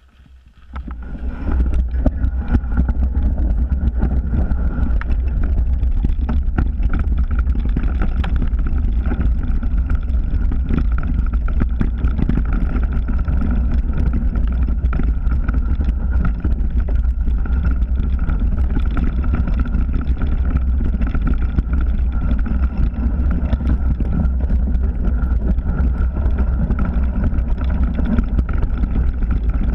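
Wind buffeting the mountain bike's action-camera microphone as a heavy, steady rumble, with the bike rattling and clicking over the rough trail at speed. It starts about a second in and stays loud throughout.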